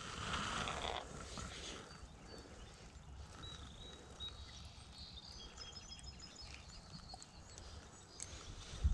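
Faint outdoor background: a steady low wind rumble on the microphone, with a brief rustle in the first second and short, high bird chirps in the middle. A single sharp thump comes near the end.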